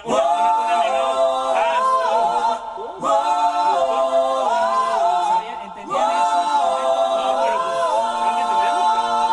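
Multi-tracked backing vocals sung in close harmony without instruments, played back in three phrases of about three seconds each.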